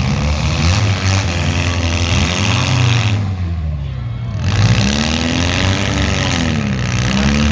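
Demolition derby car engines revving hard, their pitch swinging up and down over and over as the cars drive and push against each other.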